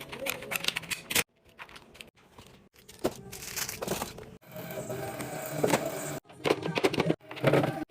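Food containers and packaging being handled: a run of plastic taps, clacks and crinkling, stopping abruptly several times with near-silent gaps between, over faint music at the start.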